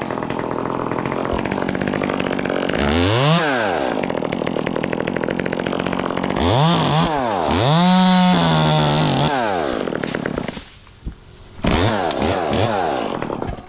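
Chainsaw engine revving up and down several times as it is throttled in the tree. It drops to idle about ten and a half seconds in, then revs again near the end.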